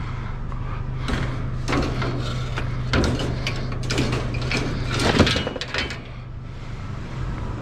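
Irregular metal clanks and rattles, a string of sharp knocks with the loudest about five seconds in, as a sleeper-sofa's folding steel mechanism is handled. A steady low hum runs underneath.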